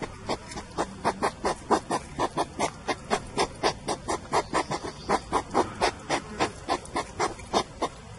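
Hedgehogs sniffing and chewing at a bowl of dog food: a fast, steady run of short noisy puffs and crunches, about four or five a second.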